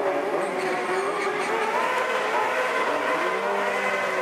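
Kawasaki Ninja sport bike engine revving during a stunt ride, its pitch climbing and dropping as the throttle is worked.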